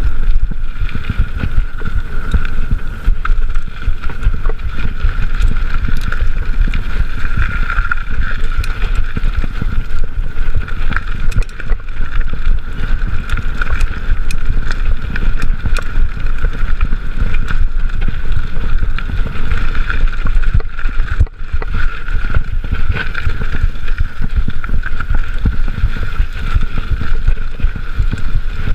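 Mountain bike riding along a dirt single track, heard from a chest-mounted camera: constant wind buffeting the microphone and a low rumble of the tyres on the trail, with small clicks and rattles from the bike over bumps. The noise dips briefly about three quarters of the way through.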